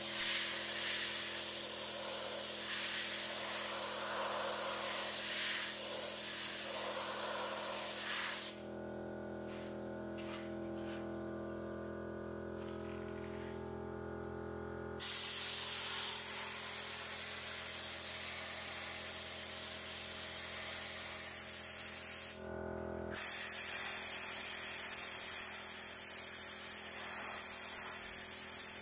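Compressed-air paint spray gun hissing in long bursts as it sprays paint onto a wall. It stops for about six seconds before starting again, and cuts out once more for a moment near the end. A faint steady hum carries on underneath.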